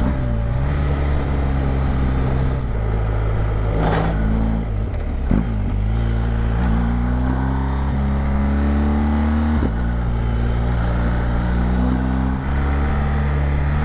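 BMW GS adventure motorcycle's engine pulling under way, with wind rush. Its pitch climbs steadily and drops sharply at each gear change, several times.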